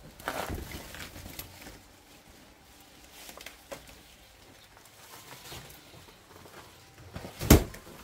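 Footsteps on old wooden floorboards, scattered light knocks, with one loud sharp knock near the end.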